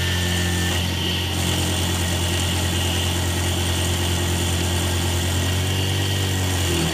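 X2 CNC mini mill running steadily as a quarter-inch end mill surfaces a block of graphite-impregnated nylon: an even machine hum with a high whine above it.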